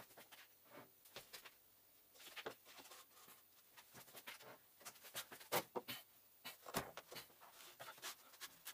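Faint, scattered clicks and knocks of plywood and steel being handled and set down: a plywood sheet laid over a glued plywood impeller and a heavy steel block placed on it as a press weight. The loudest knocks come about halfway through, with a duller thud a second or so later.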